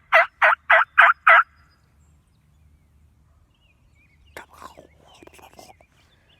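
A series of loud, evenly spaced hen turkey yelps, about three or four a second, ending about a second and a half in. A few faint rustles and clicks follow near the end.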